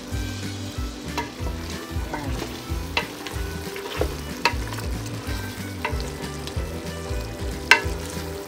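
Wooden spoon stirring chicken pieces that sizzle in their juices in a stainless steel pot, with the spoon knocking against the pot about seven times, loudest near the end.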